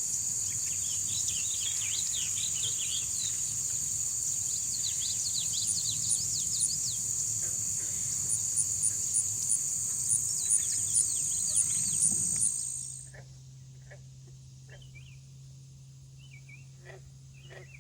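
Loud, steady, high-pitched insect trill with quick chirping animal calls over it. It cuts off abruptly about twelve seconds in, giving way to a quieter low steady hum with sparse short calls.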